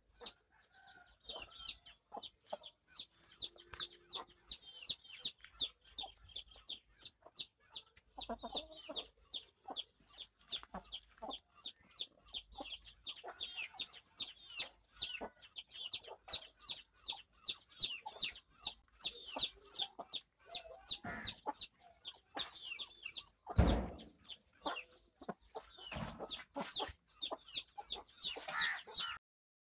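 Chickens: rapid high peeping runs on throughout, several short falling calls a second, with a few lower clucks and one loud thump late on.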